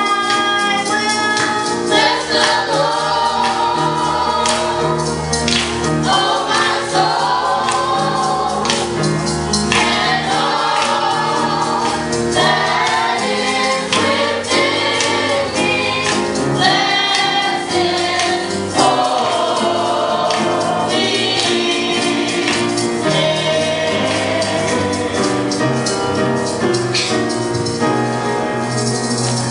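Music: voices singing a melody over instrumental accompaniment with a steady percussive beat.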